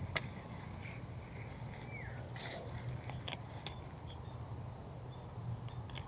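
Handling noise while a bird snare is set in undergrowth: a few sharp clicks and a brief rustle from the rod and machete, over faint short bird chirps and a steady low hum.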